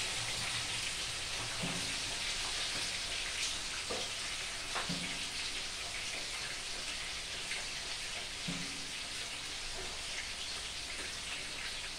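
Whole flour-coated chicken frying in hot oil in a pan: a steady sizzle with scattered pops and crackles.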